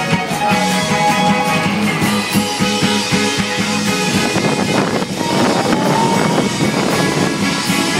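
Amplified live rock band playing through a stage PA system.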